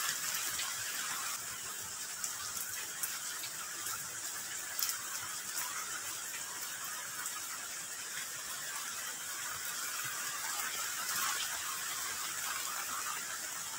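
Steady rain falling, a continuous even hiss with scattered small drip ticks.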